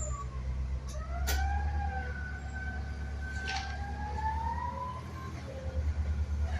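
Forklift engine running with a steady low hum, under a whine that slides slowly down and then up and down in pitch, like a siren. Two sharp clicks come about a second in and in the middle.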